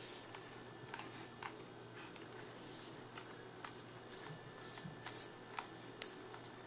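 Hands handling an iPad and pressing on its replacement glass: soft scuffs and light taps of fingers on the glass and frame, with one sharp click about six seconds in.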